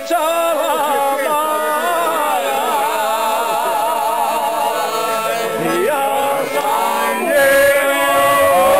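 Group of men singing a folk song together in strong, wavering voices, with piano accordions accompanying. About seven seconds in the singing swells into a louder, long-held note.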